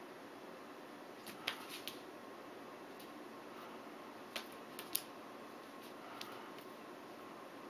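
A few light taps and clicks of a cat's paws and claws on a wooden floor as it pounces and swats at a laser dot, in a cluster about a second and a half in and again around four and a half to five seconds, over a faint steady hiss.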